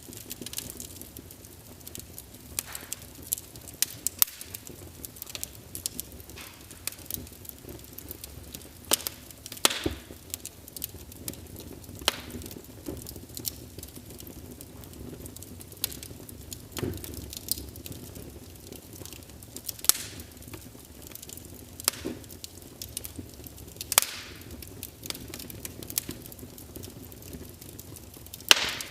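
Birchwood fire burning with a low steady hiss and scattered sharp crackles and pops, a few of them much louder than the rest.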